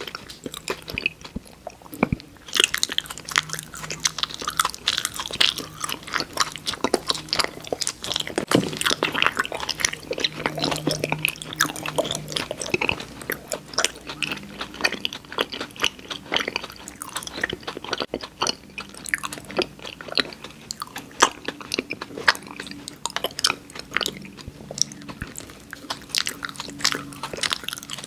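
Close-miked chewing and biting of sweets and candy: dense, irregular crunching and wet mouth clicks that keep going without a pause.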